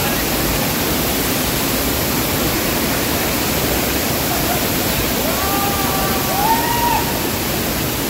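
Waterfall's falling water, a steady loud rushing. About five seconds in, a faint voice calls out over it.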